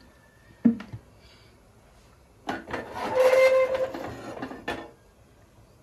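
Tawa (flat griddle) on the stove: one sharp knock about half a second in, then a rough metal scraping with a squeal for about two seconds as it shifts on the burner.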